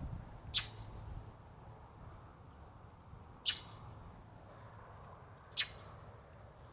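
A parent songbird guarding its nest gives three short, sharp alarm calls, two to three seconds apart, scolding an intruder at the nest.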